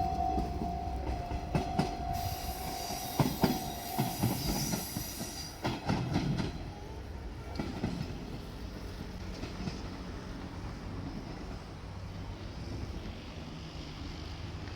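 JR Shikoku diesel railcar passing over the level crossing: wheels click over the rail joints and squeal high for a few seconds, then the rumble fades to a quieter steady drone. The crossing's steady warning tone stops about four seconds in as the train clears.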